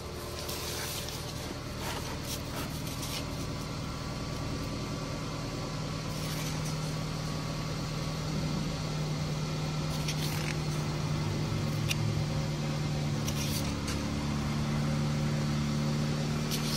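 A motor vehicle's engine running steadily, a low hum that slowly gets a little louder, with a few brief rustles of paper sheets being handled.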